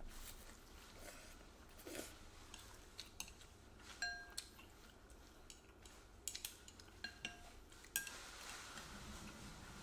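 A spoon and chopsticks clinking against a ceramic bowl during a meal. A few sharp clinks ring briefly, about four seconds in and again several times between six and eight seconds in.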